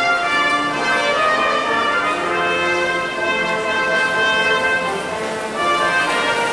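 Instrumental music: an ensemble with brass plays held chords over moving lines.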